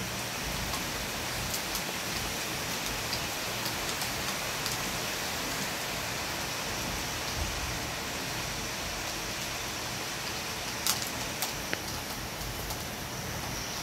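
Rainstorm: rain pouring steadily as a dense, even hiss, with scattered sharper taps of drops striking close by and a few louder ones together about eleven seconds in.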